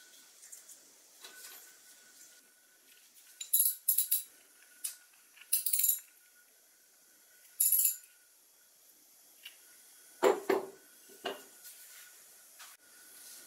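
Ratcheting ring spanner clicking in three short bursts as it tightens the spout fitting on the hand oiler's cap, then a clatter as the cap is set down on the wooden workbench, about ten seconds in.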